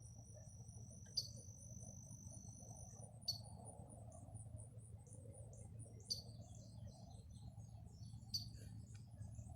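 Faint outdoor chorus of insects trilling steadily at a high pitch, with a short bird chirp repeating about every two seconds, four times.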